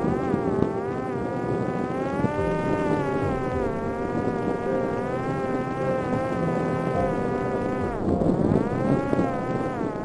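Electric motor and propeller of a Parrot Disco fixed-wing drone buzzing in flight, its pitch wavering up and down with throttle and speed, dipping and climbing again about eight seconds in. A steadier, lower hum runs beneath it at times.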